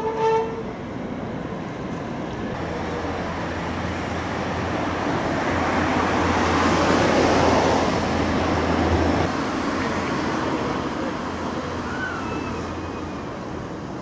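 Road traffic: a passing vehicle's low engine hum and tyre noise swell to a peak about seven seconds in, then slowly fade. A brief pitched toot sounds right at the start.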